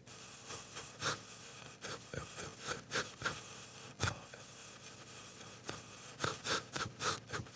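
Irregular light clicks, knocks and rubbing from someone moving about and handling things, with a sharper knock about four seconds in.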